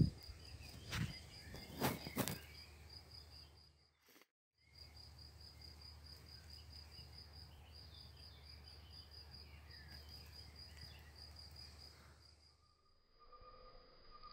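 An insect chirping in a steady, fast pulse of about five beats a second, high and thin, over a low hum. A couple of sharp hits come in the first two seconds, and the sound drops out briefly about four seconds in. Near the end the chirping gives way to fainter steady tones.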